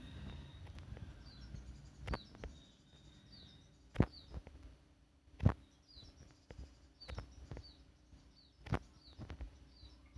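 Faint background of small birds chirping, short high chirps repeating in little runs, with a few sharp clicks, the loudest about halfway through.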